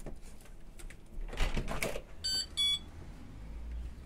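A rustle and clatter, then two short, high beep-like tones of different pitch a little past halfway, followed near the end by a low rumble.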